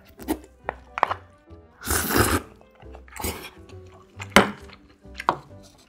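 Close-up eating sounds of raw marinated crab: several sharp clicks of a spoon against crab shell and dishes, and two longer slurps as the crab meat is sucked out, the first about two seconds in. Soft background music runs underneath.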